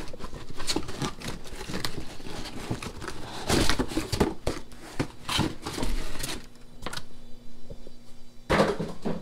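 Packaging crinkling and rustling in irregular crackles as a new aquarium flow pump is unpacked from its box. The handling pauses about six seconds in, leaving a faint low steady hum, then one more rustle near the end.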